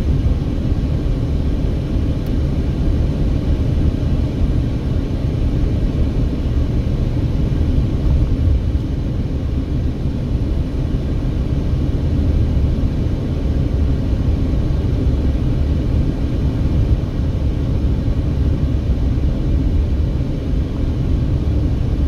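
Steady low rumble of road and engine noise inside a Mercedes-Benz car cruising at highway speed.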